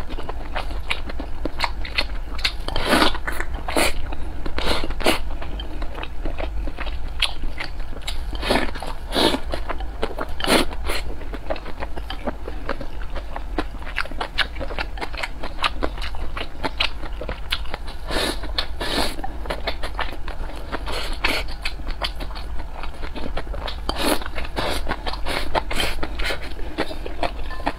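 Close-miked eating sounds: a person chewing mouthfuls of noodles and rice, with many short wet clicks and crunches at irregular intervals, over a steady low hum.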